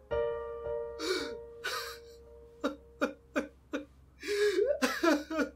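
A man crying: gasping breaths and a string of short, catching sobs. A held piano chord fades out over the first two seconds.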